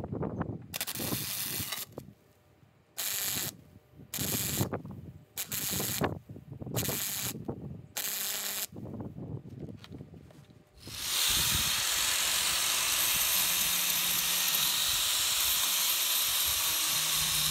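MIG welder laying short stitch welds on steel: a crackling hiss in about seven bursts of under a second each. About eleven seconds in, an angle grinder starts and runs steadily, grinding down the fresh weld.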